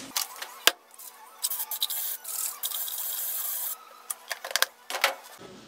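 Aerosol can of foaming engine degreaser spraying in one steady hiss of about a second and a half, starting about two seconds in, with clicks and rattles of the can and plastic container around it.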